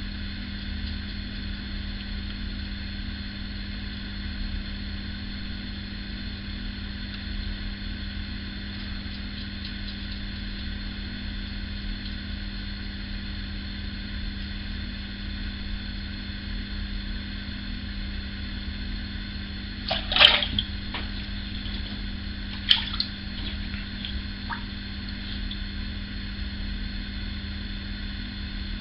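Steady electrical hum with a constant hiss, and two short sharp clatters about two-thirds of the way through.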